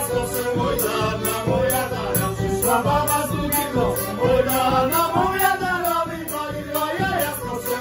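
Polish folk band playing live: a violin melody over accordion, with a large frame drum beaten in a steady rhythm.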